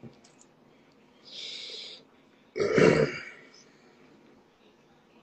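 A man burps once, a short deep burst a little over halfway through, the loudest sound here. About a second before it comes a brief soft hiss.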